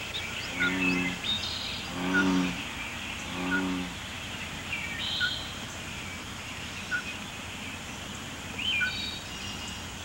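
Marsh wildlife ambience: birds chirping over a steady background hiss, with three low, drawn-out calls in the first four seconds and a short note repeating about every second and a half.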